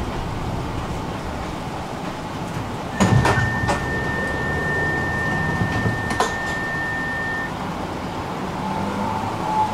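Tram standing with its motors humming low. About three seconds in, a door mechanism clunks and a steady high warning beep sounds for about four and a half seconds. Another clunk follows about six seconds in.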